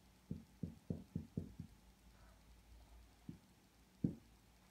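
Dry-erase marker writing on a whiteboard: a quick run of faint, dull taps as the strokes land on the board, then two single taps near the end.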